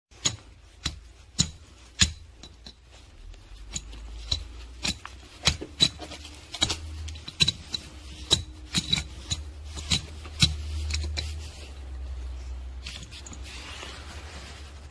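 A hand tool scraping and knocking at hardened cat excrement and litter: a run of sharp, irregular clicks and scrapes, many with a brief ringing tone, turning to softer scratching near the end.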